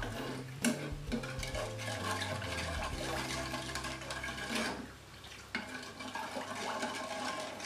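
A metal spoon stirring a hot chocolate agar-agar mixture in a saucepan, with liquid sloshing and a few clinks against the pan, over steady background music.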